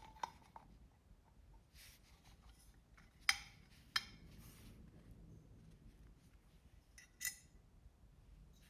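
A few faint, sharp metallic clicks and clinks spaced out over several seconds, the loudest a little over three seconds in: small metal fence parts being handled and fitted together.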